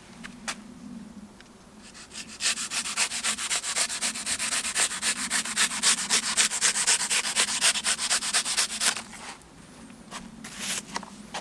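A knife sawing back and forth through cured expanding foam, trimming it down. Scattered scrapes come first, then from about two seconds in there are about six quick, hissy strokes a second for some seven seconds, then a few scrapes again.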